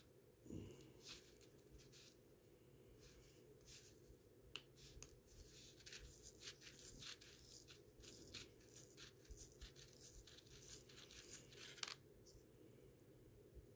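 Faint small clicks and scratches of fingers handling a vintage wristwatch case and its exposed movement, a few sharper ticks among them, over a low steady hum.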